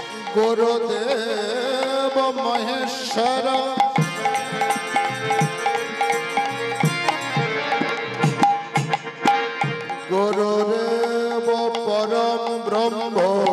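Bengali kirtan music: a male voice sings long, wavering held notes over steady hand-drum strokes and a sustained instrument drone. The voice drops out for several seconds in the middle while the drum carries on, then comes back.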